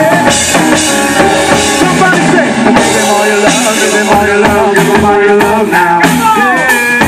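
Live worship band playing through a stage PA: singers over keyboard and drum kit, loud and steady. A note slides down about six seconds in.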